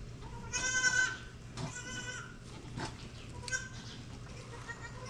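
Goat bleating: three short high-pitched bleats about a second apart, with a fourth beginning at the very end.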